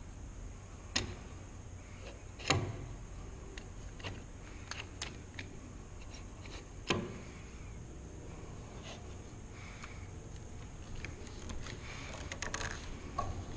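Wooden hand screw clamp being fitted and tightened onto a workpiece on a workbench: three sharp wooden knocks in the first seven seconds, with light clicks and rattles between and a run of small clicks near the end.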